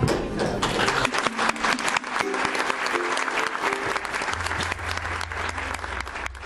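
Audience applauding, with music playing under it; a bass line comes in about two-thirds of the way through.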